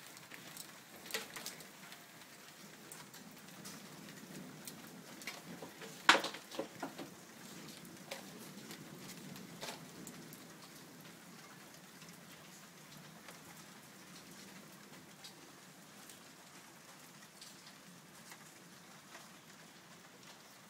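Steady rain falling on the rooftops, with scattered close drip and tap sounds. A single sharp tap about six seconds in is the loudest sound.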